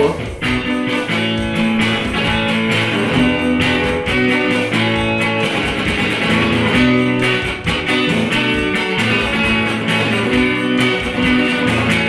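Electric guitar solo on a Stratocaster-style guitar, melodic picked notes played over held low accompanying notes.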